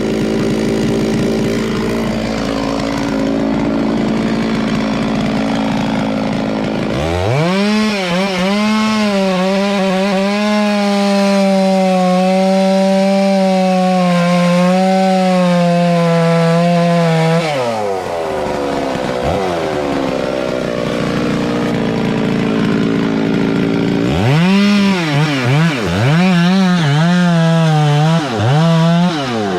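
Chainsaw running at a low speed, then revved up at about seven seconds and held at full speed for about ten seconds while cutting wood before it drops back. Near the end it is revved again in several quick surges that dip and rise as it cuts.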